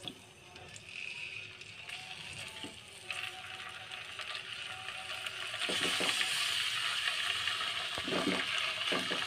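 Raw chicken drumsticks sizzling as they are laid one by one into a wok with a little hot oil. The frying hiss starts about three seconds in and grows louder about halfway through as more pieces go in, with a few soft knocks as pieces are set down.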